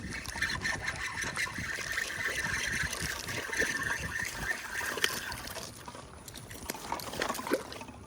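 Water splashing and trickling as a caught bass is released back into the water, with a few small ticks; it quietens after about six seconds.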